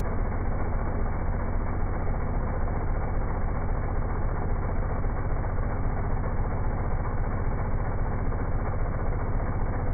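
Petrol-engined balloon inflator fan running steadily at an even pitch, muffled, with no treble.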